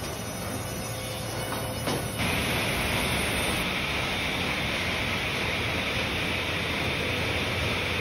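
Sawmill machinery running with a steady mechanical noise. About two seconds in it jumps abruptly to a louder, hissier sound.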